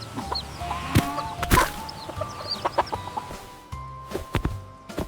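Cartoon chickens clucking in short, separate calls over light background music.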